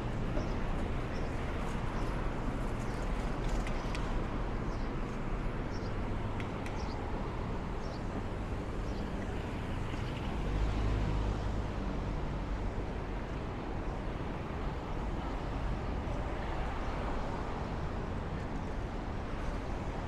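City street traffic: a steady hum of passing cars, with a louder low rumble of a vehicle going by about halfway through.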